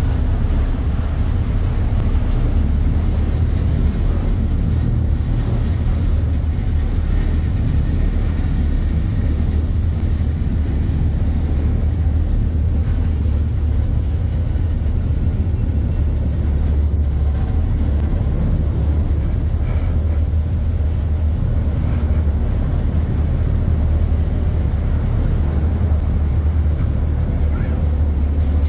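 Harbour ferry's diesel engines running with a steady low rumble, over the rush of churning water in the propeller wash behind the stern.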